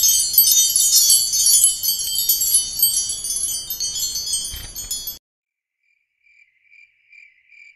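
Wind-chime shimmer, a dense high tinkling that cuts off suddenly about five seconds in. Faint cricket chirping follows, evenly spaced pulses about two a second.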